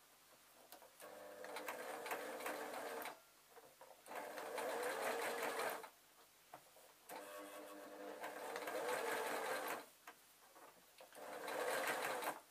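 Electric sewing machine stitching in four short runs of two to three seconds each, stopping briefly between them while zebra faux fur is fed through.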